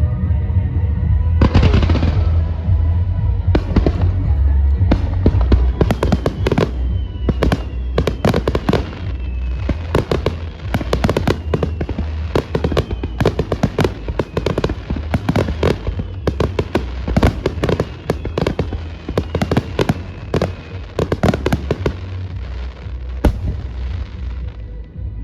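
Fireworks barrage: a rapid run of sharp cracks and bursts in quick succession, with several whistling shells gliding down in pitch, over music and deep rumbling booms. The cracks thin out near the end.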